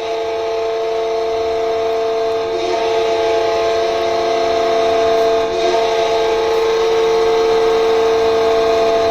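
Carolina Hurricanes' NHL goal horn sounding one long, steady chord of several tones together, held for about nine seconds and starting to fade near the end.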